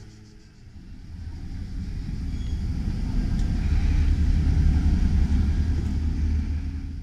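Low rumble of a passing road vehicle, swelling over a few seconds and then fading away.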